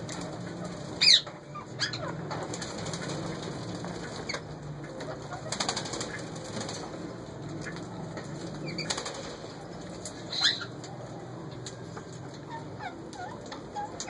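Indian ringneck parakeets calling with short, sharp squawks. The loudest comes about a second in, another follows soon after, and one more comes about ten seconds in, with a few faint chirps near the end. Clusters of quick clicks sound in between, over a steady low hum.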